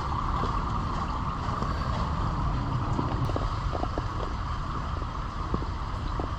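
Steady low rumble of wind buffeting the microphone, with a few faint ticks in the middle.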